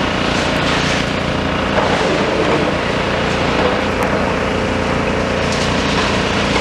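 Heavy engines running steadily, a continuous mechanical drone with hiss over it.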